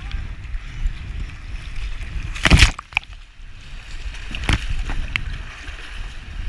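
K1 racing kayak paddled through rough river water: continuous rushing and sloshing water with a low rumble, broken by two loud splashes, about two and a half seconds in and again about four and a half seconds in, as water breaks over the bow.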